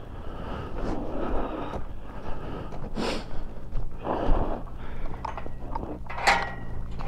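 Metal farm gate being unlatched by hand: clanks and rattles of the steel gate and its catch, the loudest near the end with a short metallic ring, over footsteps on gravel and a motorcycle engine idling steadily.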